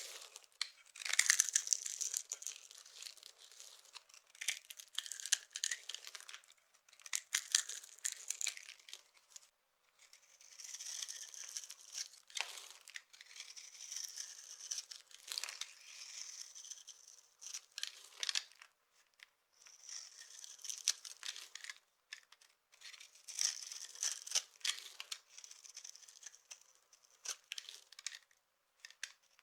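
A dry, crumbly block being crushed: clusters of dry crackling and crunching every second or two, with short pauses between them.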